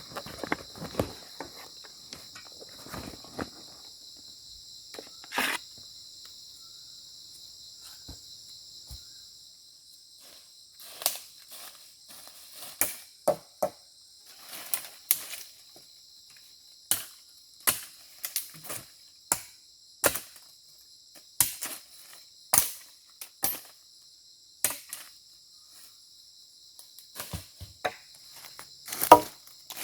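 Insects chirring steadily in a high, even drone. Through the second half there are sharp knocks about once a second, with a few more near the end.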